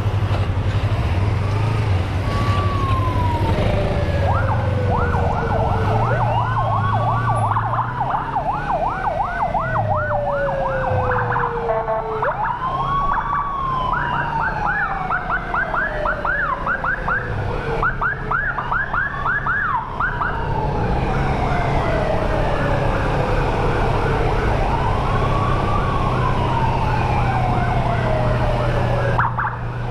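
Several emergency sirens sounding together. A slow wail rises quickly and falls away over several seconds, repeating about every five to six seconds, over a fast yelp that comes and goes. Beneath them runs the steady drone of a motorcycle engine under way.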